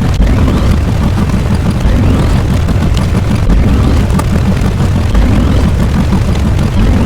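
Loud, continuous rumbling noise, heaviest in the deep bass, with faint rising whistles in the higher range: a layered explosion-style rumble sound effect.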